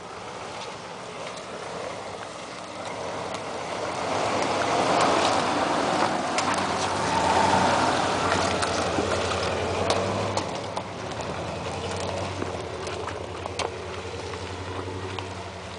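A Jeep Grand Cherokee's engine pulling slowly along a muddy off-road trail, getting louder as it passes close by about five to eight seconds in, then drawing away with a steady low drone. Scattered sharp clicks and cracks run over it.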